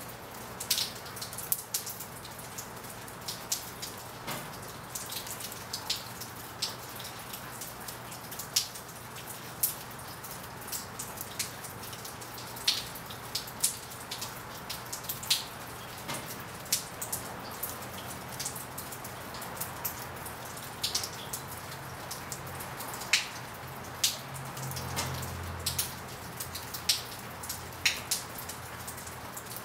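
Steady rain hissing, with single raindrops and drips tapping sharply at irregular intervals, several a second.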